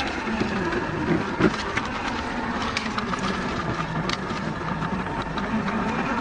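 Traxxas TRX-4 RC crawler's electric motor and geared drivetrain whining steadily under load as the truck crawls over loose rock, with scattered clicks and crunches of stones shifting under the tyres and a louder knock about a second and a half in.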